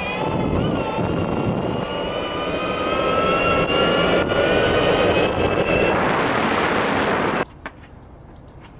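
Boosted Board version 2 Dual Plus electric skateboard riding along: a steady whine from its electric hub-drive motors over the rumble of the wheels and wind, the pitch rising slightly as it speeds up. The whine stops about six seconds in, and the sound cuts off suddenly shortly after.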